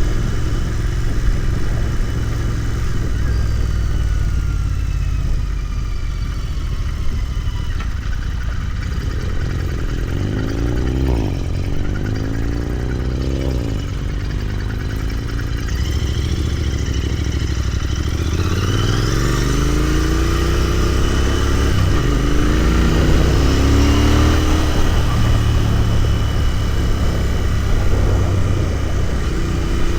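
Royal Enfield Continental GT 650's 648 cc parallel-twin engine under way, running steadily at first, then pulling harder with the revs climbing several times, each climb broken off by a gear change.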